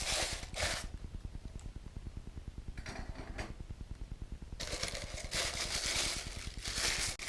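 Plastic packaging rustling and crinkling as small model parts are unwrapped, in a short stretch at the start and a longer one from about the middle to near the end, over a low steady hum.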